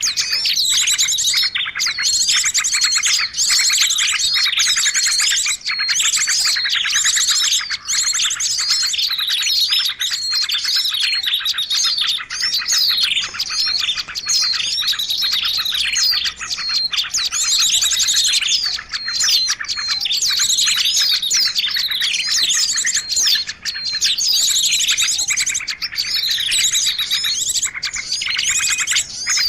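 Songbirds singing without a break: a dense, fast stream of high chirps, whistles and trills. It is a masteran recording, bird song played to caged songbirds for them to copy.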